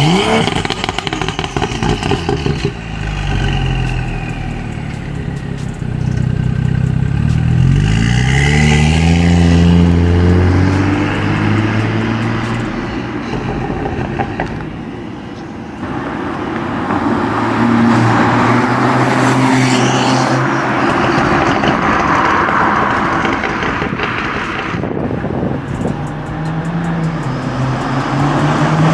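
Exhaust of a BMW 335i's N55 turbocharged straight-six, running through a catless downpipe with a resonator delete and the stock muffler. A rev drops off at the start, then the car pulls away, accelerating with the pitch climbing in steps, and grows quieter with distance. Near the end it comes back, the engine note rising again.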